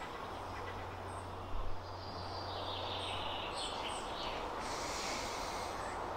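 Outdoor woodland ambience: a steady low hum and hiss, with birds chirping faintly in the middle. A brief low thump about one and a half seconds in.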